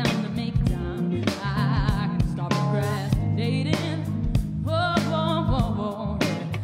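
Live band playing a song: electric guitar, bass and drums, with regular drum hits and a sung vocal line with wavering, vibrato-like pitch.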